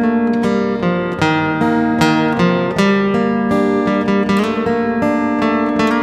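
Steel-string acoustic guitar played solo in an instrumental passage, picked notes and chords ringing and changing every fraction of a second, with no singing.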